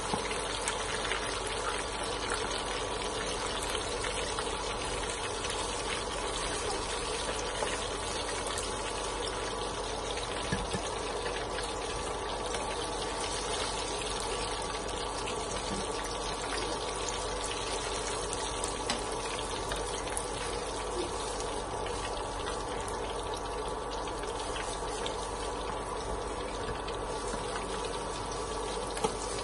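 Breaded chicken pieces deep-frying in hot oil: a steady, even sizzle.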